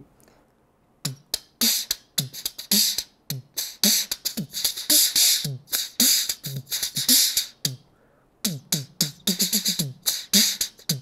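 Beatboxing into hands cupped over the mouth: a rhythm of deep, falling bass-drum thumps alternating with hissing snare and hi-hat sounds. It starts about a second in, breaks off briefly near the eight-second mark, then resumes with quicker strokes.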